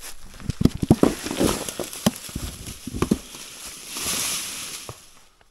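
Irregular crunching and knocking, then a short rush of hiss about four seconds in.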